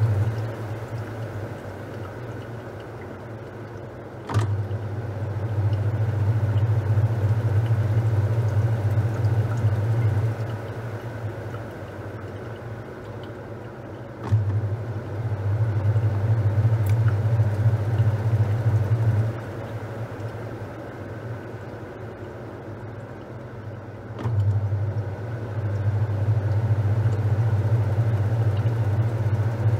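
Top-loading washing machine agitating a load of towels: the motor hums for about five or six seconds at a time, starting each run with a click, then stops for about four seconds while water keeps swishing in the tub. The on-off rhythm repeats three times.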